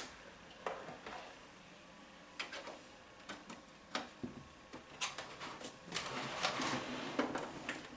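Cables being handled and plugged into the rear ports of a desktop computer: scattered clicks and knocks with rustling, busiest a little past the middle.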